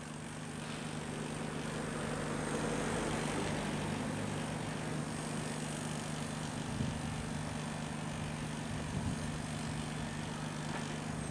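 Steady low drone of a city railway yard and traffic, an even hum with a constant low tone and no single event standing out.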